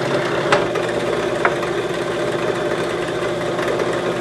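Benchtop drill press motor running steadily while the bit bores a 5/16-inch hole through two wooden brackets taped together, with a few sharp clicks.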